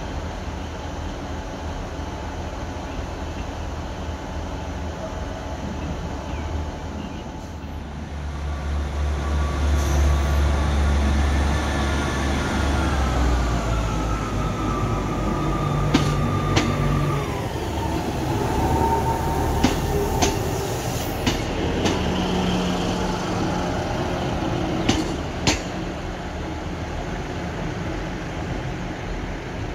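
Class 158 diesel multiple unit's underfloor diesel engines running with a steady low rumble that grows louder about eight seconds in. A whine falls in pitch midway, and several sharp clicks come in the second half.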